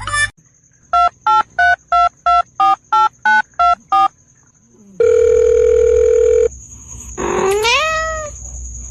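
Telephone keypad tones: ten quick beeps of varying pitch, as a number is dialed. Then a steady phone tone lasting about a second and a half, and a cat meowing once, the pitch rising and then falling.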